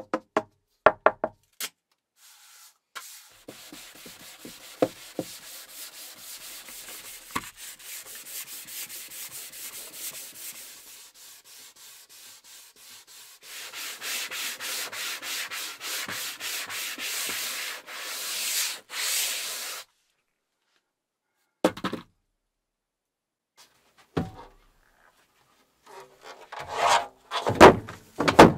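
A sponge rubbed back and forth in quick, even strokes over a smooth mold surface, wiping on a coating. The strokes turn scratchier about halfway through, stop abruptly, and are followed by a few knocks and louder handling sounds near the end.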